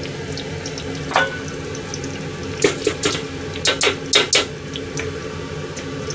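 Oil bubbling steadily in a deep-fry pot, with sharp metal clinks of a ladle and mesh skimmer against the pots: one about a second in, then a quick cluster of about seven between roughly two and a half and four and a half seconds in.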